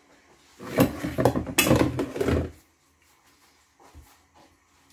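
Loud rattling and clattering of kitchen things being handled out of view, lasting about two seconds from just over half a second in, followed by a faint knock near four seconds in.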